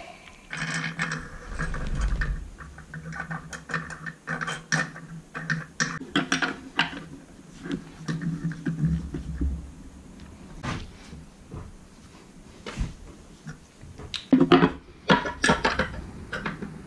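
Hand tools and metal clutch parts clicking, clinking and knocking irregularly while an ATV's secondary CVT clutch is being assembled. The clicks bunch up and get louder about 14 seconds in.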